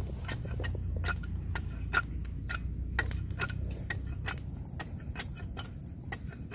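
Large knife shaving and chopping down a bamboo pole, a run of sharp, irregular clicks and taps about two to three a second, over a steady low rumble.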